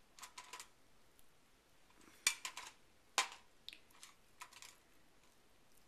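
Light clicks and knocks of plastic cups and wooden craft sticks being handled and set down on a metal baking tray, with two sharper knocks about two and three seconds in.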